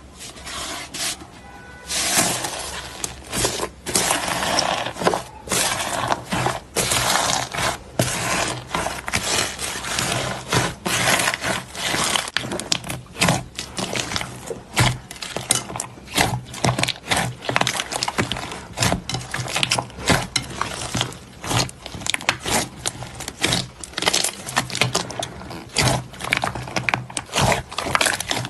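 Slime being squished, poked and stretched by hand: a dense, irregular run of wet clicks, pops and crackles, getting louder about two seconds in.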